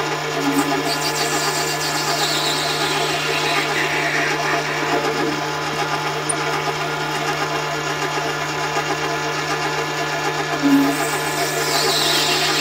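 Metal-cutting machine tapping a thread into a brass workpiece with a machine tap: a steady low motor hum under the whirr of the spindle and cutting. The pitch falls in a long sweep about two seconds in and again near the end.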